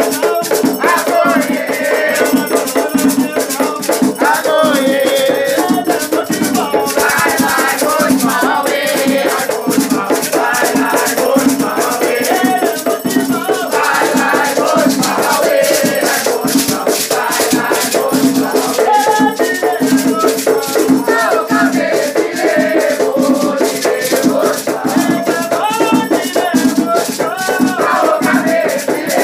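Batuque ceremonial music: voices singing over a continuously shaken rattle whose dense rhythmic strokes run without a break.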